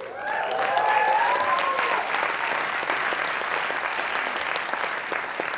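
Audience applauding, with a few voices cheering over the clapping in the first couple of seconds; the applause thins out near the end.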